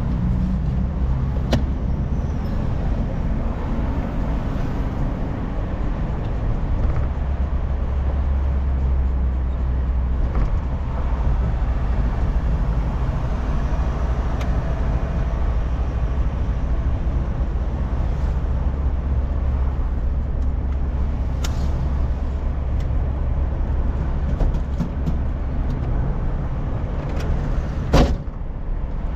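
Car cabin noise while driving: a steady low engine and road rumble. A few faint clicks, and one sharp knock about a second before the end.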